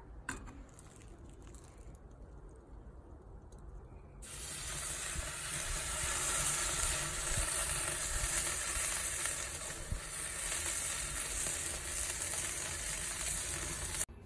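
A thick marbled steak sizzling on a hot grill grate over charcoal: an even, loud hiss that starts suddenly about four seconds in and cuts off just before the end. Before it there is only faint background noise with a single click near the start.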